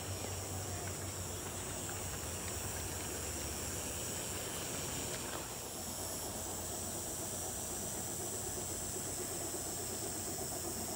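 Large-scale model train, an Aristocraft ALCO PA diesel with streamlined passenger cars, running along garden track: a steady rolling rumble of wheels and motor under a constant high-pitched hiss.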